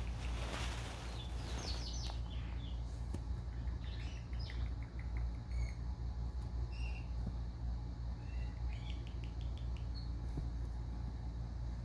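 Indian ringneck parakeet making soft, short chirps and squeaks scattered all through, after a brief rustling noise at the start, with a few light clicks and a steady low hum underneath.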